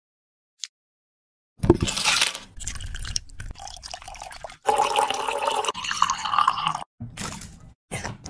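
Liquids poured into a glass bowl in a series of short cut-together pours, starting about a second and a half in with a loud splashing onset.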